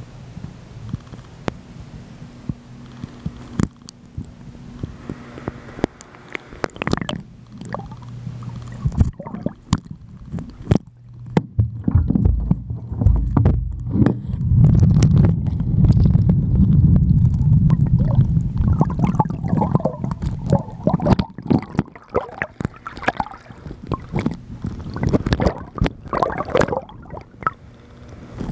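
Underwater sound picked up by a camera submerged in a swimming pool: muffled gurgling and rumbling of moving water, with scattered clicks and knocks. A low steady hum sits underneath, and the rumble gets much louder about halfway through.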